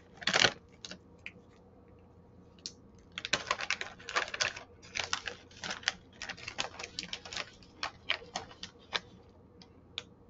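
Crinkly metallised plastic snack bag of twisted rice crackers being handled: irregular crackling and rustling as a hand reaches inside and pulls a cracker out. A sharp crackle right at the start, a short pause, then dense bursts of crinkling.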